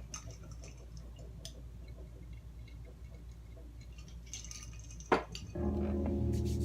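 Faint scattered clinks and rattles over a low hum, then a sharp click about five seconds in, after which music with a sustained low bass starts.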